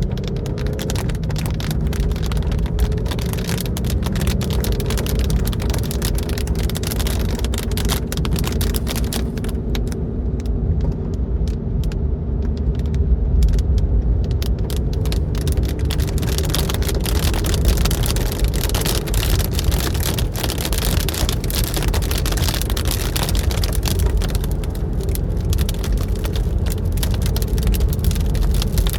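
Car driving on a highway, heard from inside the cabin: a steady low road and engine rumble, with rain pattering on the car.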